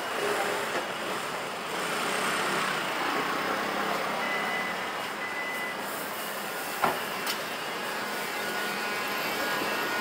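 Street traffic: motor scooter and car engines on a city street, with a few short high beeps about four to five seconds in and a single sharp knock about seven seconds in.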